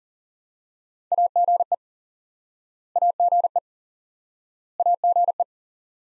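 Morse code tone sending the abbreviation AGE (·− −−· ·) at 40 words per minute: a quick group of mid-pitched beeps at one steady pitch, heard three times about two seconds apart.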